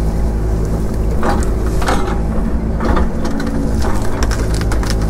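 Excavator's diesel engine running steadily while it handles tree stumps, with a handful of knocks and crunching clatter as the stumps and dirt are dropped and pushed into place.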